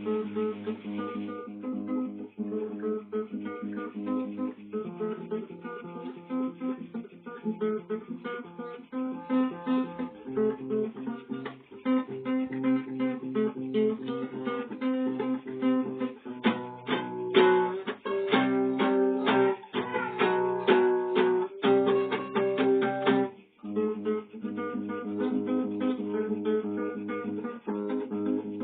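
Acoustic guitar music: picked notes and chords. About halfway through they give way to a louder stretch of rhythmic strummed chords, which drops back to picking near the end.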